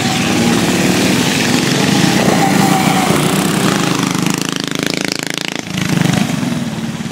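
Small single-cylinder engines of two racing minibikes running hard, their note wavering as the throttle is worked, with a brief drop about five and a half seconds in.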